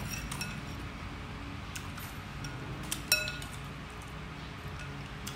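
A metal spoon and chopsticks clinking against a glass bowl of noodle soup while stirring, a few light clinks with one louder ringing clink about three seconds in.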